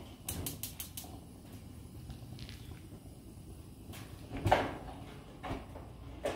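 Burner control knobs on a NexGrill gas grill being pushed and turned. A quick run of sharp ticks comes in the first second, then a few short, duller clunks; the loudest is about four and a half seconds in.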